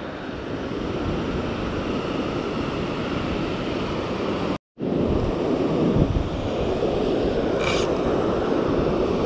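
Surf breaking on a beach, heard as a steady rushing wash with wind buffeting the microphone. The sound cuts out completely for a split second about halfway through, and a short high hiss shows up near the end.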